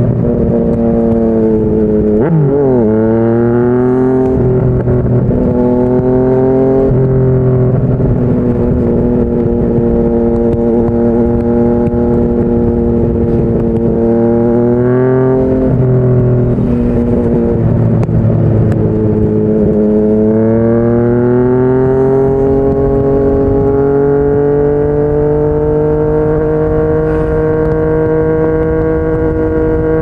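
Yamaha MT-09 three-cylinder engine through a Yoshimura R55 slip-on exhaust, revs rising and falling with throttle and gear changes while riding, then climbing steadily over the last ten seconds.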